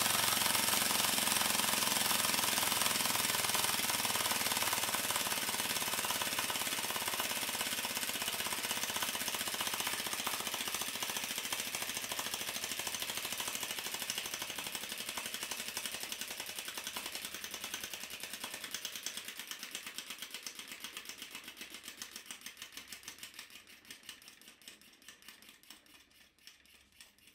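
3D-printed plastic compressed air engine running with a propeller, a fast chatter of exhaust puffs and clicks. It slowly winds down, the puffs growing fainter and further apart until they are separate beats a few times a second, and it stops near the end.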